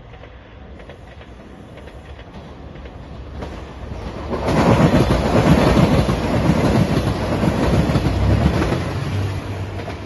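JR Shikoku 2700 series diesel limited express train passing close by: its running noise and the clatter of wheels over the rails build from about three seconds in, are loudest as the cars go by, and fade near the end.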